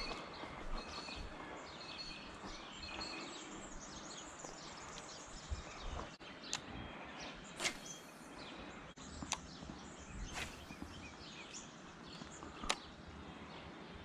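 Many birds chirping and calling in the background. A few sharp clicks and a couple of brief swishes stand out around the middle.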